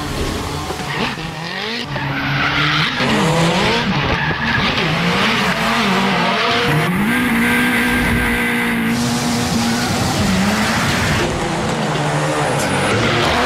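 An engine revving up and down repeatedly, with a steady hiss and screech over it, as from tyres skidding.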